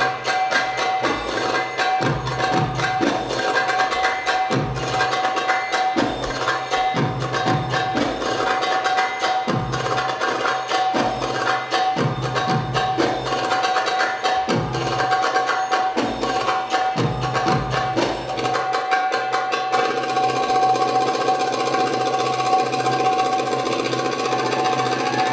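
Middle Eastern drum-solo music for belly dance: goblet-drum (tabla) rhythms with deep bass strokes about once a second over a steady held tone. About 18 seconds in, the deep strokes drop out and the music grows denser.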